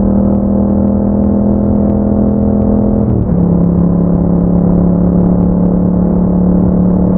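2021 Yamaha MT-07's 689 cc parallel-twin engine through an Akrapovic exhaust with dB killer, running at steady revs under way. About three seconds in the note dips briefly and then holds steady at a slightly lower pitch.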